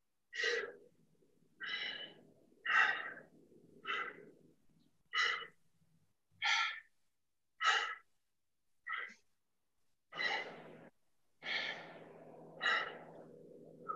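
A man breathing out in short, sharp breaths, about a dozen evenly spaced ones, roughly one per rep of a kettlebell clean and press.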